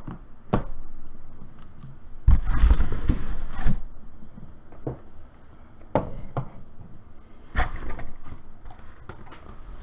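Cardboard card boxes being handled and set down on a wooden table: a series of separate knocks and rustles, the loudest a cluster with a low bump about two and a half seconds in.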